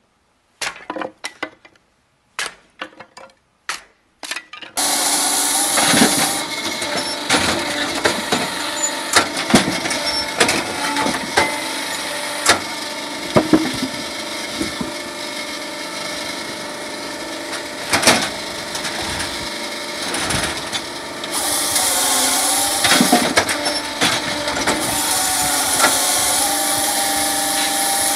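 A hammer strikes wood in a kindling splitter several times, sharp separate knocks. About five seconds in, an electric firewood processor takes over, running steadily with frequent knocks and clatter of logs, and a brighter hissing stretch twice near the end.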